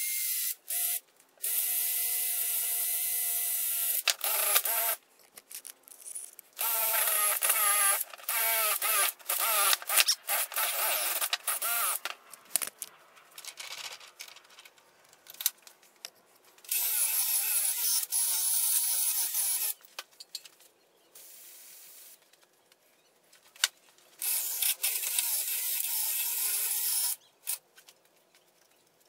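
Cordless drill spinning a wire-wheel brush against a small engine's cast cylinder head, run in several bursts of a few seconds each, its whine wavering as the brush bears on the metal.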